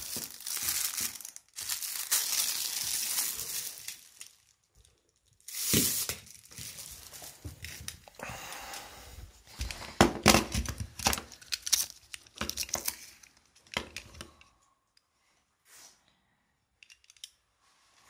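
Clear plastic packaging crinkling and tearing as it is pulled off a new belt, in several bursts that stop about three quarters of the way through.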